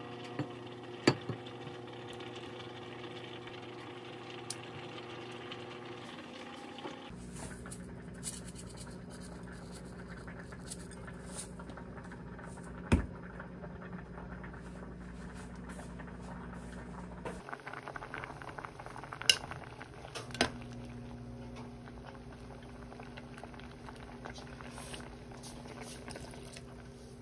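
Kitchen cooking sounds over a steady low hum: cooked bulgogi tipped from a plastic bowl onto a ceramic plate, a few sharp clinks of dishes and utensils, then a pot of doenjang jjigae simmering with water poured into it near the end.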